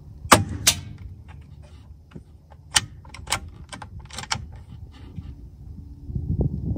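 Sharp mechanical clicks from handling a Gamo Arrow PCP air rifle, a loud pair about half a second in, then a run of smaller clicks a few seconds later as the rear cocking lever is worked to load the next pellet. A low rumble comes in near the end.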